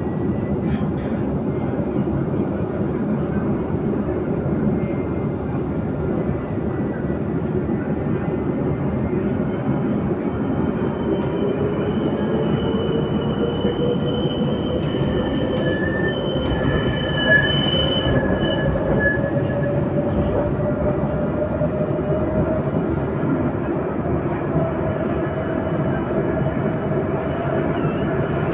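Jerusalem Light Rail tram running, heard from aboard: a steady rumble of wheels on the track, with a motor whine rising slowly in pitch as it picks up speed. High wheel squeal for several seconds around the middle.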